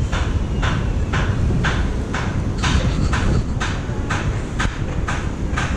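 Footsteps crunching on sand and scattered wood scraps, a regular beat of about three a second, over a steady low rumble of wind on the microphone.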